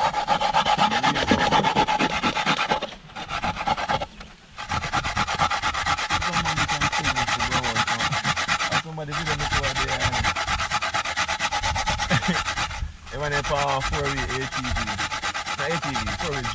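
Fresh coconut flesh being grated by hand on a flat perforated metal grater resting in a steel bowl: rapid back-and-forth rasping strokes, broken by a few short pauses.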